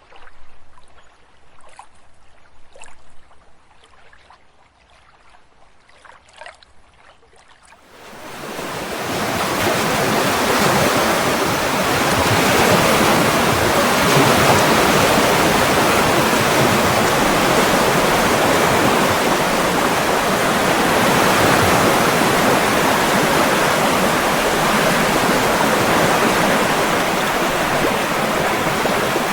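Quiet outdoor ambience with a few faint clicks for the first several seconds. Then, about eight seconds in, a steady rush of water swells in and holds loud and even.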